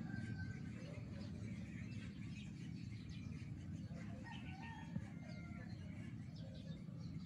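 Birds calling in short, scattered chirps and notes over a steady low rumble.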